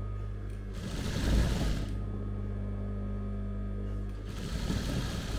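Juki industrial sewing machine running: its motor hums steadily, broken twice by louder, noisier bursts of stitching, about a second in (with one loud knock) and again near the end.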